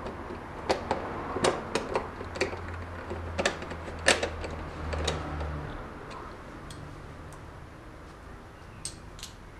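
Irregular sharp clicks and taps of a hand screwdriver and screws working against a motorcycle's plastic fairing as it is screwed back on. A low steady hum runs under the first half and stops about halfway through.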